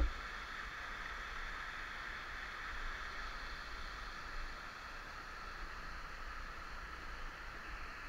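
Steady rush of water flowing over rock at a small waterfall, with a low rumble of handling or wind on the camera's microphone and a short bump right at the start.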